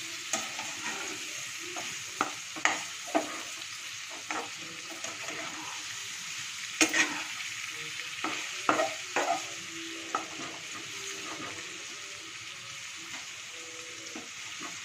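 Radish slices sizzling in oil in a frying pan while a slotted spatula stirs and turns them, with irregular clicks and knocks of the spatula against the pan, the loudest about seven and nine seconds in.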